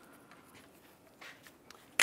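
Quiet handling sounds: a few faint metallic clicks as the wheel lock bolt is threaded by hand into the wheel hub, with a sharper click at the very end.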